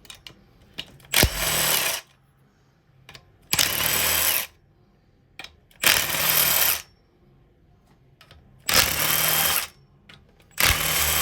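A power impact wrench run in five short bursts of about a second each, a couple of seconds apart, with a high whine in each burst, as fasteners are taken off during a VQ35DE engine teardown.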